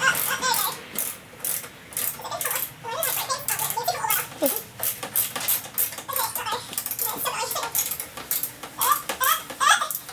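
Laughter over a run of quick metallic clicks and taps from a screwdriver working at bolts behind a car's front bumper.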